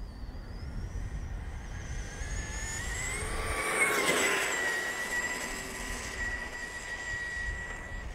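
Tamiya FF03 RC car's electric motor and drivetrain whining at full throttle, rising in pitch as the car speeds up, loudest as it passes about four seconds in, then holding a steady high whine as it runs away down the runway.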